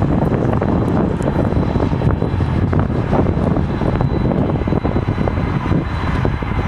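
Boeing 747 freighter's four jet engines running as it taxis: a steady, loud rumble with a faint thin high whine over it.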